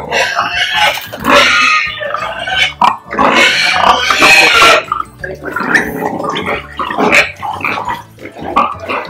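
Pigs in metal crates grunting and squealing loudly, with a long harsh squeal about a second in and a longer, louder one from about three to five seconds in, and shorter grunts between and after.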